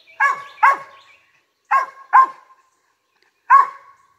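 A cur squirrel dog barking at a squirrel it has spotted up in the trees: five sharp barks, two quick pairs and then a single one.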